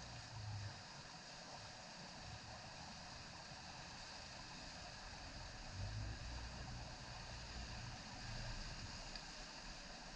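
Steady rain falling, an even hiss with a few brief low rumbles mixed in.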